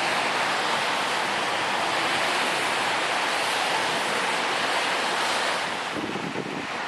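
Steady rushing noise of a MARC commuter train with an SC-44 Charger locomotive running away along the track, mixed with wind on the microphone. The locomotive itself makes no distinct engine note. The noise drops a little about five and a half seconds in.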